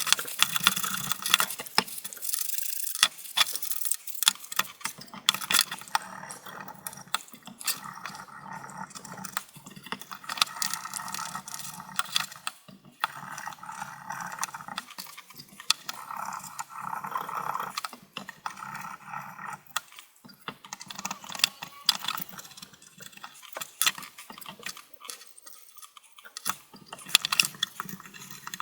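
Rapid, irregular scraping and clicking of a tool working caked dust off a plastic CPU cooling fan, with sharp ticks as it catches on the blades.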